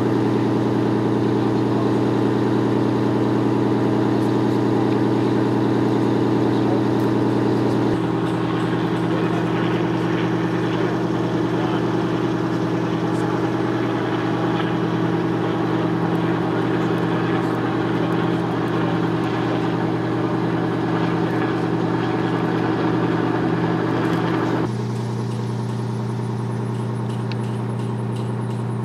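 An engine idling steadily: an even, pitched hum that shifts slightly in pitch about eight seconds in and drops a little in level near the end.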